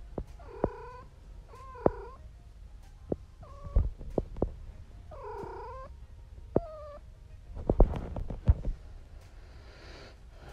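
Domestic cat meowing close to the microphone: about five short, arching calls over the first seven seconds. Between the calls come sharp knocks and bumps as its head brushes against the phone, the loudest about four and eight seconds in.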